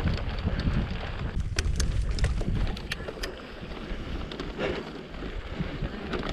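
Wind buffeting the microphone over a mountain bike's knobby tyres rolling down a dry dirt singletrack, with a run of sharp clicks and rattles about one and a half to three seconds in.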